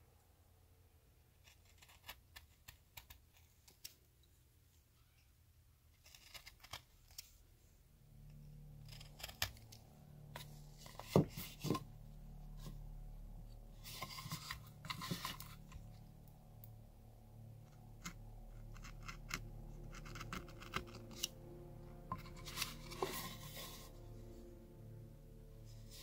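Hand carving tool cutting cottonwood bark: short, crisp slicing and scraping strokes in clusters a few seconds apart, with a few light clicks in the first seconds.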